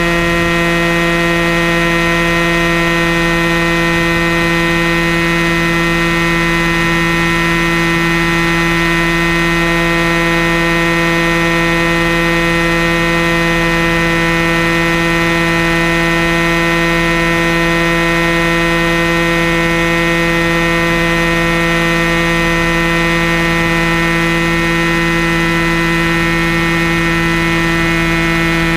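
Airstar Mongoose RC helicopter's motor and rotor running with a loud, steady whine, heard close up from on board; the pitch begins to fall near the end as it settles on the grass.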